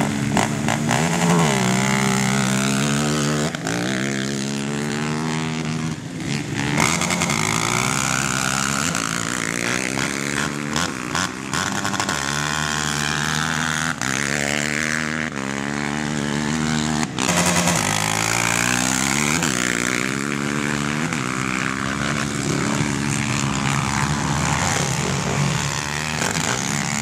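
Racing quad bike engines revving hard, the pitch climbing, dropping and climbing again over and over as the riders accelerate and shift through the gears.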